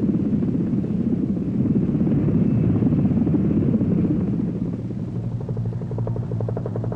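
Helicopter running, with its low rotor noise and engine hum. In the second half a steady pulsing rotor beat with a set of engine tones stands out more clearly.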